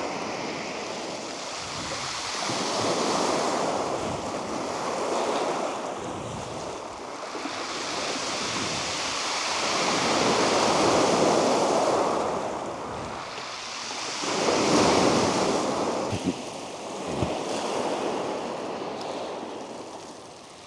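Waves breaking and washing up a shingle beach, swelling and falling away every few seconds.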